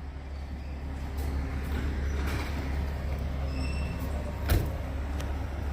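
Truck engine running steadily at idle, with a single sharp knock about four and a half seconds in.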